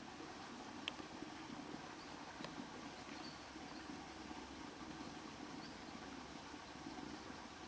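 Steady high-pitched chirring of insects, with a faint click about a second in.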